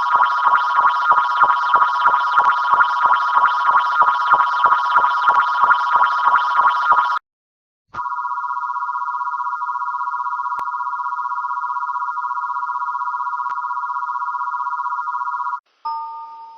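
Electronic emergency alert attention tone: several steady tones sounding together, with a rapid beeping pulse of about three or four a second over them for the first seven seconds. After a short break the steady tone returns, then cuts off near the end and a brief stepped chime begins.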